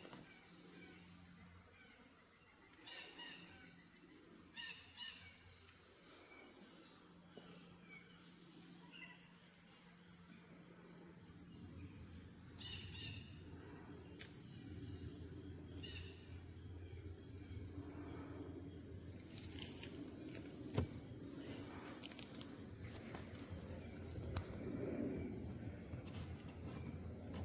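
Faint outdoor nature ambience: a steady high insect drone with scattered short bird chirps, and a low rumble that builds from about halfway through. One sharp click about three-quarters of the way in.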